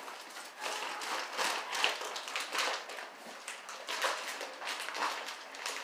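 Irregular taps, knocks and rustles of things being handled, coming quickly one after another.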